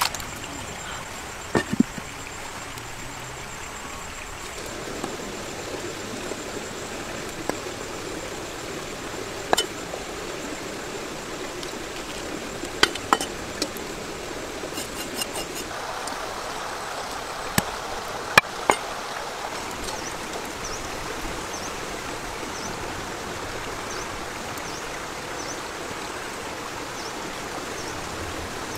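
A steady rushing, water-like noise with scattered sharp knocks, among them a cleaver striking a wooden chopping block, several times about halfway through.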